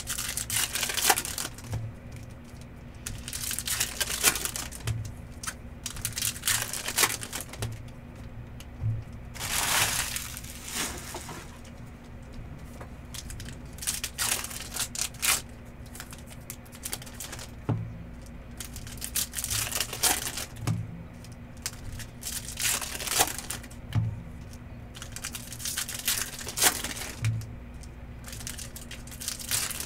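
Foil trading-card pack wrappers being torn open and crinkled, one pack after another in short crackly bursts, with occasional soft knocks as cards are handled on the table.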